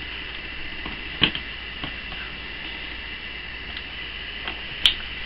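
Room tone: a steady background hiss with a low hum, broken by two short sharp clicks, one about a second in and one near the end.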